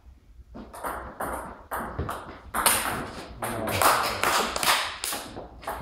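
Table tennis ball being hit back and forth in a rally: a run of sharp clicks of the ball on bats and table, about two to three a second, echoing a little in the hall.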